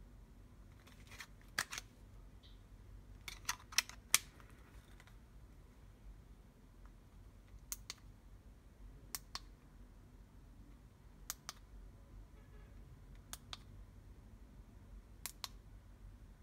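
Buttons on a handheld LED light remote control being pressed, giving sharp, faint clicks every second or two, some in quick pairs and a small cluster about four seconds in.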